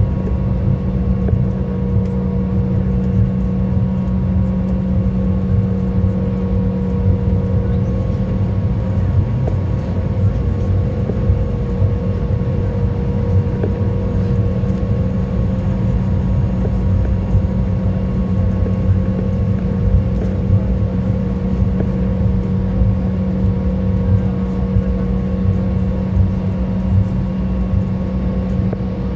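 Cabin noise of a regional jet airliner taxiing after landing: its engines running at low power give a steady hum with a few held tones over a low rumble.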